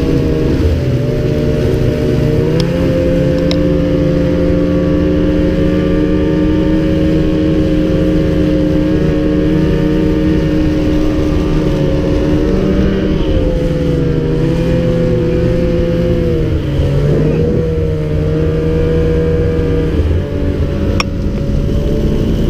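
Ski-Doo Summit 154 snowmobile's two-stroke engine running under way at a steady pitch. The throttle eases off and picks up again a few times, the deepest dip about two-thirds of the way in.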